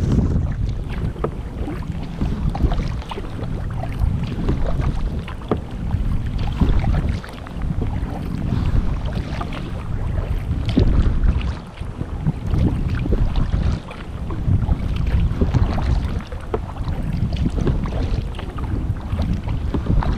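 Kayak paddle strokes dipping into and splashing through lake water, water dripping off the blade, over a heavy low rumble of wind buffeting the microphone.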